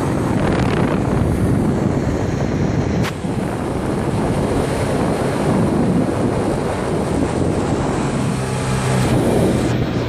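Golf cart driving along a road, wind buffeting the microphone over the steady noise of the ride. There is a brief knock about three seconds in, and a low steady hum becomes clearer near the end.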